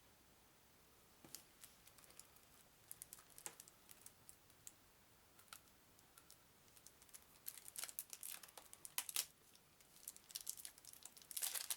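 Plastic wrapping crinkling and tearing as a deck of game cards is unwrapped. Scattered crackles start about a second in and grow denser and louder toward the end.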